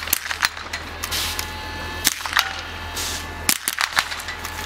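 Biathlon .22 rimfire rifles fired from the prone position: sharp, short cracks from several shooters at irregular intervals, some coming in quick clusters.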